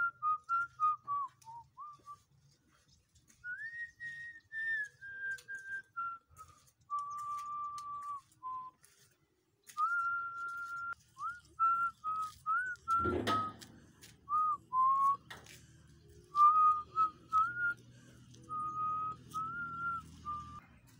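A person whistling a slow tune by mouth: a string of held notes with short slides between them. There is a single thump about two-thirds of the way through.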